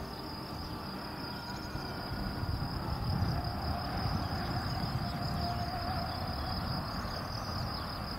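Crickets in the grass chirping steadily in one unbroken high-pitched drone, over a low outdoor rumble that swells slightly a few seconds in.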